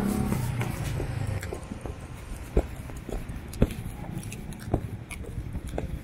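Street traffic: a passing vehicle's engine and tyres rumble at the start, then ease to a lower background hum. Three short sharp taps come about a second apart in the middle.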